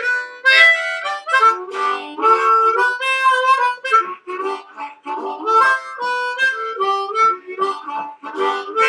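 Harmonica playing a short blues tune, a string of short and held notes.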